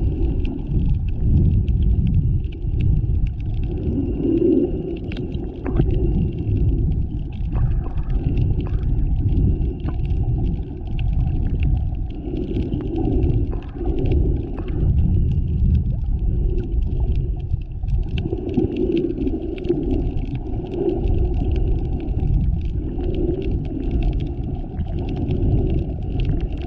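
Muffled underwater rumble and water movement picked up by a GoPro 7's microphone while snorkeling, with a low swell every few seconds and a few faint clicks.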